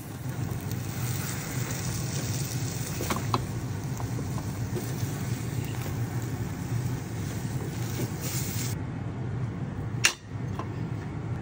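Beaten egg sizzling in a hot rectangular tamagoyaki pan over a steady low hum, with a few light spatula clicks. A single sharp knock comes about ten seconds in as the rolled omelette is lifted out onto a plate.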